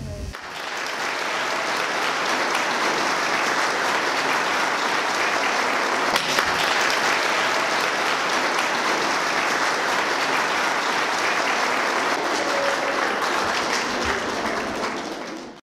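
Audience applauding in a theatre hall. It swells up within the first second as the music ends, holds steady and fades out at the very end.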